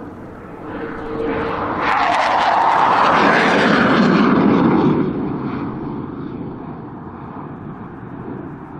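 Low-flying military jet passing close by. Its engine noise swells to a peak about two to five seconds in, drops in pitch as it goes past, then fades away.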